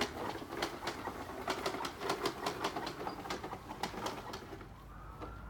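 Toy push lawn mower clicking and rattling as it is pushed along, a quick irregular run of clicks that dies away about four and a half seconds in.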